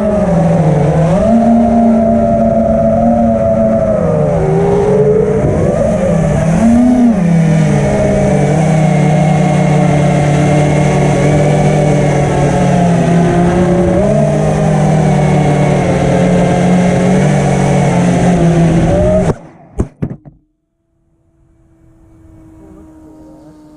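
Brushless motors and propellers of a 5-inch FPV quadcopter running in flight, a whine whose pitch rises and falls with the throttle. It cuts off abruptly about nineteen seconds in, leaving only a faint hum.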